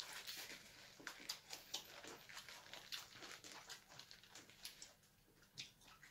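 Chewing and crunching of crispy fried chicken and a burger: a string of soft, irregular crackles and mouth clicks that thins out near the end.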